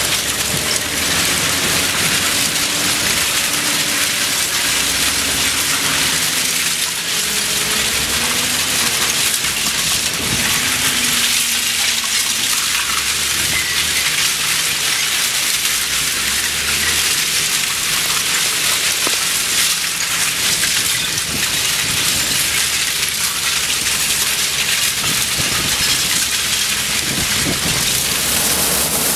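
Shredded steel scrap pouring off the end of a stacking conveyor onto a pile: a dense, steady metallic clatter like heavy rain. A low machinery drone runs underneath.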